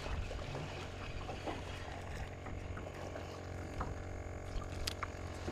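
Steady low motor hum with faint overtones, from the fishing boat's motor, with a few faint scattered ticks.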